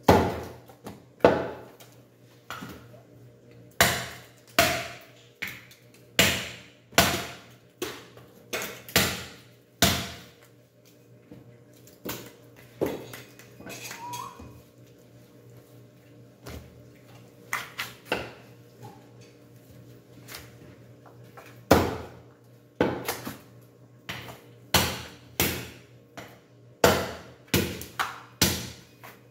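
Irregular sharp knocks of a butcher's knife striking the wooden chopping block as pork is cut from the bone, each with a short ringing tail, some in quick pairs.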